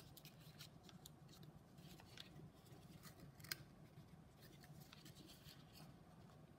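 Faint rustling and crinkling of origami paper being folded and creased by hand, with a few sharper crackles, over a low steady hum.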